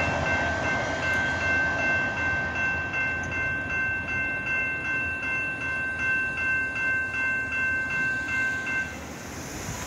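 Railroad crossing warning bell ringing in a steady pulsing beat over the fading rumble of a freight train that has just cleared the crossing. The bell stops near the end as the gates finish rising, the sign that the crossing is clear.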